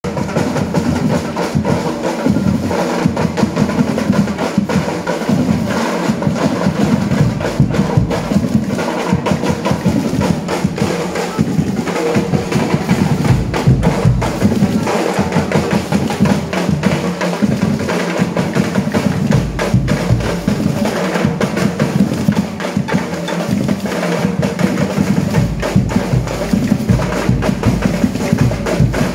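A group of drums playing a steady, driving rhythm, the percussion of a street parade band accompanying dancers.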